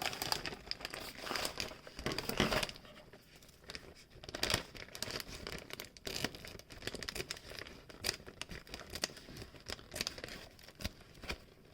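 A mailing bag being handled and torn open: irregular crinkling and tearing in short bursts.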